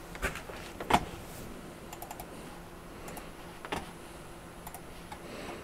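Scattered sharp clicks of a computer mouse and keyboard, about eight in all, the loudest about a second in, with a small cluster around two seconds. A steady faint hum of the test bench's fans runs underneath.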